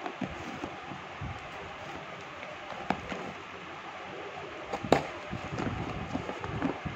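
Small knife cutting and scraping the packing tape on a cardboard shipping box, with a few sharp clicks and taps, the loudest just before five seconds in. Cardboard rustles and scrapes as the box is handled near the end.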